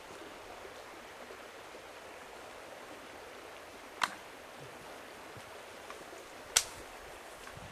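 Steady rush of running stream water, with two sharp clicks about four seconds and six and a half seconds in.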